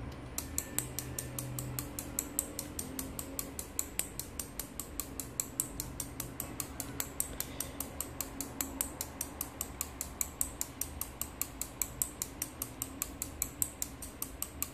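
SRD-05VDC-SL-C 5 V relays on an eight-channel relay module clicking in a rapid, even train as they switch on one after another in a repeating chase sequence, driven by a shift register.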